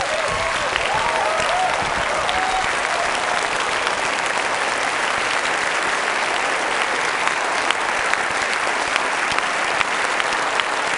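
Large audience applauding steadily, with a few wavering calls over it in the first three seconds.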